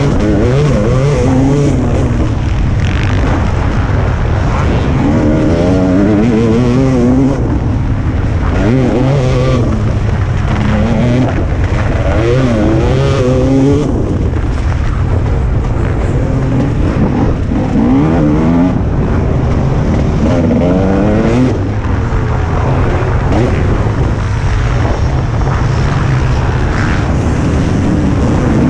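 Motocross bike engine at race pace, heard from on board, its pitch climbing and dropping again and again as the rider accelerates, shifts gear and backs off.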